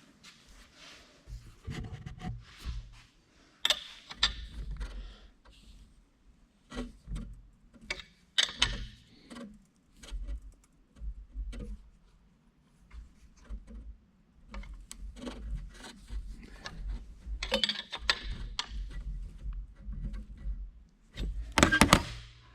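Hand tools and metal parts clinking, knocking and scraping in irregular bursts during work on a seized Duramax turbocharger's exhaust housing. A few louder metallic clanks stand out, the loudest near the end.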